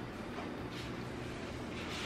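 A steady low hum under faint background noise, with no distinct knocks or clatters.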